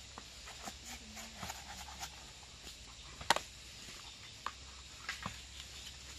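Irregular sharp knocks and cracks, the loudest one about three seconds in.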